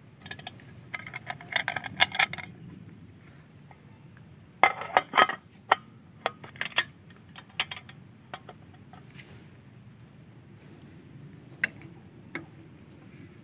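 Metal clinking and rattling as an aluminium canteen cup is handled and set onto the pot supports of a portable gas stove, in two bursts about a second in and about five seconds in, with two single clicks near the end. Insects chirr steadily and high-pitched underneath.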